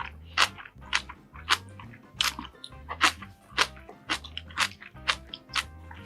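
Close-miked eating: a person chewing and biting food, with sharp wet clicks and crunches about twice a second. Soft background music with a low, repeating bass runs underneath.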